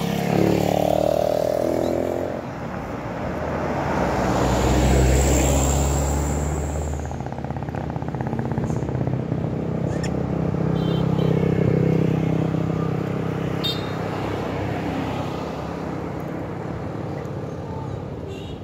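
Motor vehicles, motorcycles and cars, passing one after another on the road, each engine swelling and fading. The first falls in pitch near the start, the deepest and loudest comes about five seconds in, and another passes around twelve seconds in.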